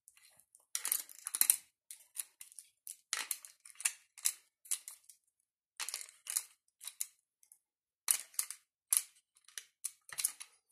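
Bolts being loaded one by one into the magazine of a Steambow AR-6 Stinger pistol crossbow: a string of short, irregular clicks, scrapes and rattles as each bolt is slid in.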